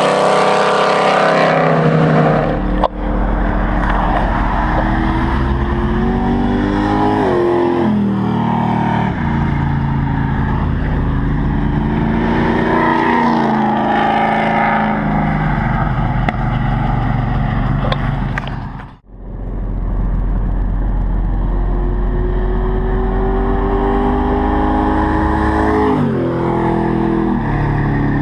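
Chevrolet 454 SS pickup's big-block V8 accelerating hard, its pitch climbing and then dropping back at each gear change, several times over. The sound cuts out sharply about two-thirds of the way through, then the engine is heard again.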